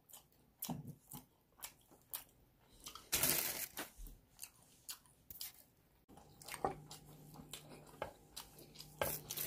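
Close-up chewing of crunchy garlic toast topped with mashed avocado: soft wet mouth clicks and crunches, with a louder crunch about three seconds in. Near the end, a spoon scrapes and clicks in a glass jar of mashed avocado.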